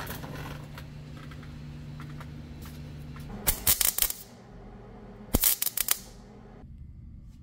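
Arc welder tack-welding a steel tube clamped in a vise: two short bursts of crackling, about three and a half and five and a half seconds in, each under a second long. A steady low hum runs underneath for the first few seconds.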